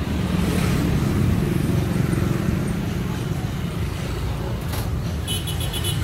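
Steady low rumble of motorbike engines and street traffic, with a quick run of short high beeps about five seconds in.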